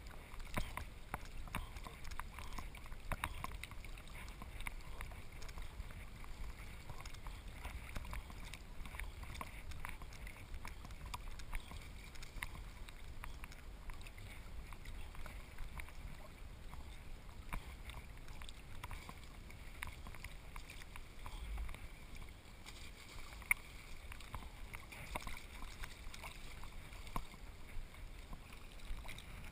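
A swimming dog paddling through lake water. Water splashes and sloshes right against the camera strapped to its back, with a steady low rumble and many small irregular splashes.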